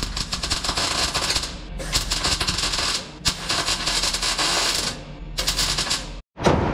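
MIG welder crackling as it lays welds on sheet steel, in four bursts with short pauses between them. After a brief gap, a sharp knock comes at the very end.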